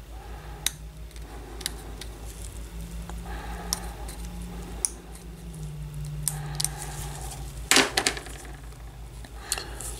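Small clicks and faint scraping of a hand instrument working excess cement off a zirconia implant crown and its titanium insert, with a louder quick cluster of clicks about eight seconds in as the instrument is handled, over a steady low hum.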